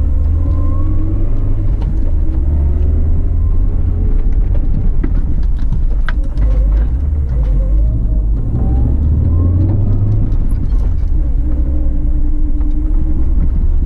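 Suzuki Grand Vitara's 2.0-litre four-cylinder petrol engine running under load as it crawls over rough off-road ground. The revs rise and fall slowly over a heavy low rumble, with a few light knocks.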